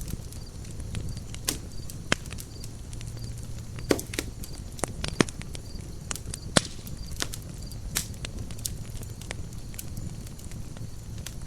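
Campfire burning: wood crackling with sharp, irregular pops over a steady low rumble of flames.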